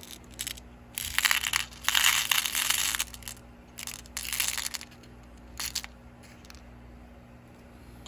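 Crinkling and rustling of a packet of small glass rondelle beads being handled, in four bursts, the longest about two to three seconds in.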